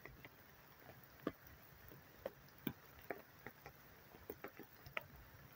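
Raindrops falling in the rain, heard as faint, irregular separate ticks and taps, about two a second and unevenly spaced, over a light hiss.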